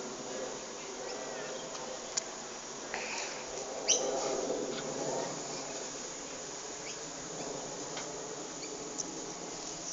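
Airbus A330 jet engines droning overhead in a steady buzz during the flyover. A few sharp clicks cut in, the loudest about four seconds in.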